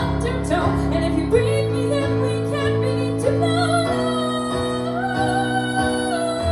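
Live solo song: long held, wavering sung notes over steady instrumental accompaniment, with no words made out.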